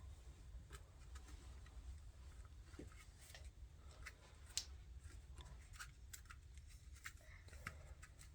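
Faint, scattered small clicks and rustles of hands pressing and smoothing an adhesive grip wrap onto a polymer pistol frame, over a low steady room hum.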